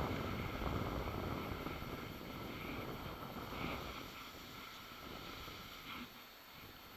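Wind rushing over the microphone of a skier's camera during a downhill run, with the hiss and scrape of skis on snow. Loudest in the first seconds, it eases briefly near the end.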